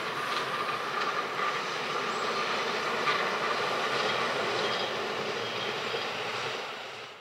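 Regional passenger train rolling along the track, a steady run of wheel-on-rail noise with faint clicks, dying away near the end.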